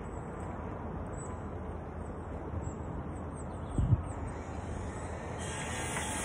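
Outdoor ambience: wind rumbling on the microphone with small birds chirping, and a single low thump a little under four seconds in. About five seconds in a steady hiss comes in and stays.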